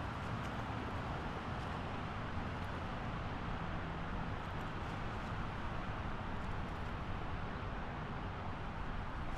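Steady roar of highway traffic: a continuous wash of tyre and engine noise from passing cars, with no single vehicle standing out.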